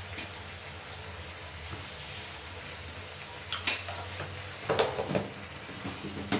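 Parwal and potato pieces sizzling steadily in oil in a steel kadai over a gas flame. From about halfway through, a few sharp metal clinks and knocks of steel plates set down on the counter, the loudest first.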